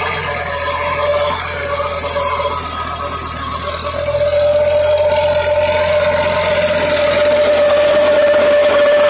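New Holland tractor's diesel engine running under load while its PTO drives a rotavator tilling the soil. The sound is steady, with a whine that gets louder about four seconds in.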